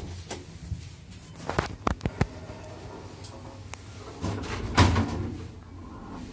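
The sliding car doors of a 1977 Zremb elevator run shut, ending in a knock just under five seconds in, which is the loudest sound here. Earlier, about one and a half to two seconds in, there are a few sharp clicks after a floor button is pressed.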